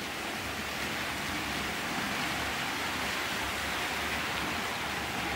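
OO gauge model trains running on the layout's track: a steady whirring rush of wheels and small electric motors that grows slowly louder as the trains approach.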